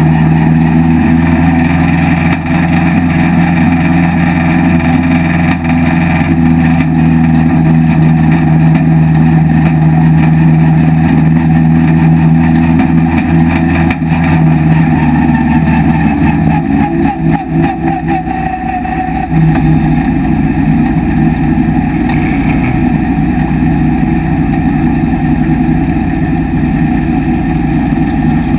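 Vintage race car engine heard from its open cockpit, running steadily at low revs while rolling slowly. A little past halfway the sound turns uneven for a few seconds as the revs drop, then settles into a lower, steady run.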